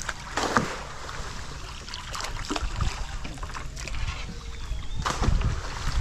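Trapped fish leaping and splashing at the water surface in quick, irregular splashes, with wind rumbling on the microphone.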